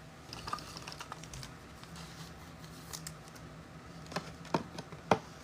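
Trading cards being handled: light rustling and small ticks of cards sliding and being set down, with three sharper clicks near the end.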